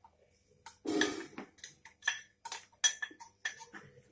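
A run of light clinks and taps, several a second from about a second in: a steel spoon knocking against small steel spice containers and the glass mixing bowl as salt is scooped out.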